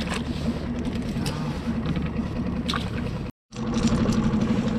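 Skiff's outboard motor running steadily at trolling speed, with scattered mechanical clicks and rattles over the hum and a light splash at the start as a fish is let go over the side. The sound cuts out abruptly for a moment a little after three seconds in.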